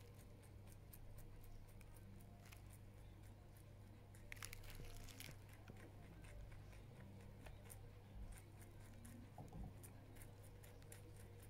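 Lop-eared rabbit chewing and tearing fresh leafy greens: faint, quick crunching clicks, with a louder spell of tearing about four to five seconds in. A steady low hum runs underneath.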